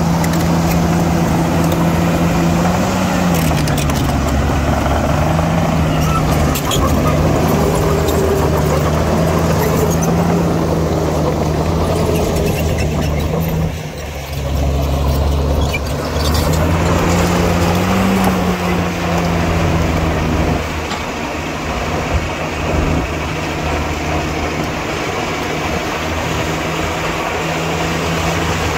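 Diesel engine of heavy earthmoving machinery running steadily. Its pitch swells briefly a few times (about three seconds in, past the middle and near the end), and the loudness dips shortly around the middle.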